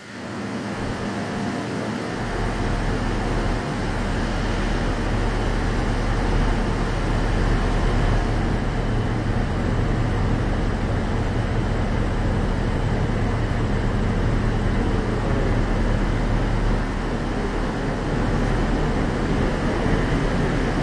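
Steady hum and whir of an Aoimori Railway 701 series electric train standing at the platform. One of its low tones drops out near the end.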